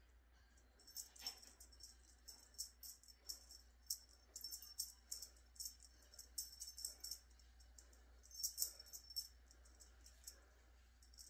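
A small jingling, rattling object shaken in quick, irregular bursts, starting about a second in and dying away near the end.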